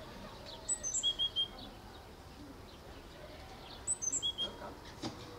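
Small songbird chirping in two short phrases about three seconds apart, each a few quick high notes.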